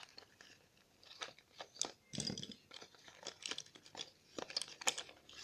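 Small plastic glitter containers from a slime kit being picked through and handled: irregular light clicks, taps and rustles, with sharper knocks just before two seconds and again near five seconds.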